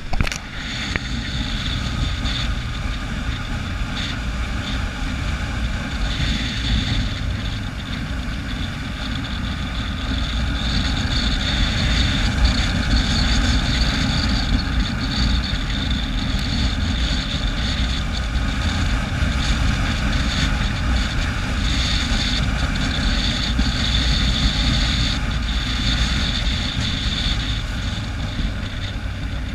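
Motorcycle riding at road speed, its engine running steadily under wind rushing over the microphone.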